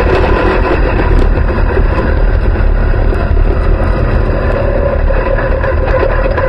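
Dirt track race car's engine running loud and steady, heard from inside the cockpit, as the car slows from about 41 to 23 mph.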